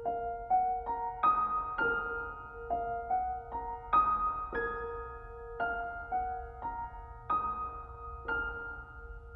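Background music: a slow, gentle keyboard melody of struck, ringing notes, about two a second, over one sustained note.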